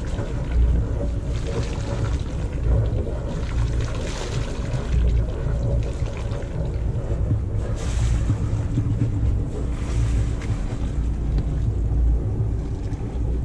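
Wind buffeting the camera microphone: a loud, uneven low rumble with a hiss over it.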